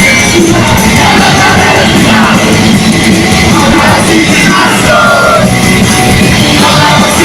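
Loud live rock band playing, with a singer's voice over drums and guitars.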